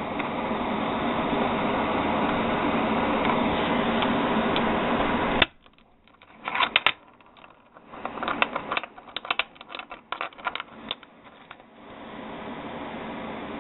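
A steady rushing noise cuts off abruptly about five and a half seconds in. It is followed by a run of light, irregular metallic clicks as brass .45 ACP cartridges are handled and snapped into a full moon clip. The steady rushing noise returns near the end.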